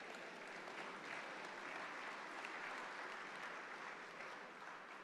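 Audience applauding, faint, swelling after about a second and fading toward the end.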